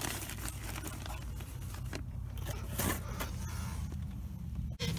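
Faint rustling and scraping of a cardboard box and plastic-bagged parts being handled, with a few light clicks, over a steady low hum.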